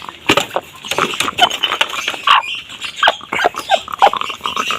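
Hen making a snoring noise ('ngorok') in short, irregular breaths a few times a second: heat stress, which the keeper says is from overheating, not illness.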